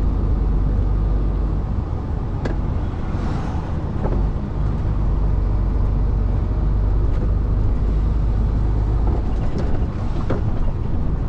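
Articulated lorry running at road speed, heard from the cab: a steady low rumble of diesel engine and tyre noise, with a few faint knocks.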